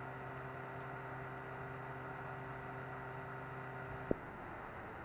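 Steady low electrical hum over a background hiss. The hum cuts off at a single sharp click about four seconds in, leaving only the hiss.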